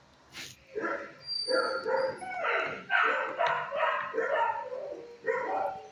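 Dogs barking again and again from about a second in, with a sharp click just before.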